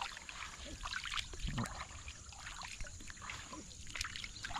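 Bare feet wading through shallow floodwater: irregular small splashes and sloshing as each step lifts and drops.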